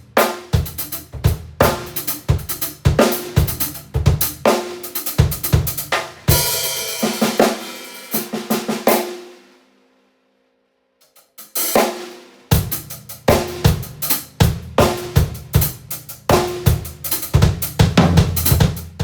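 Acoustic drum kit played hard: bass drum, snare, hi-hat and cymbals in a fast groove. A cymbal crash about six seconds in rings out and dies away, leaving a brief pause before the playing starts again near the middle.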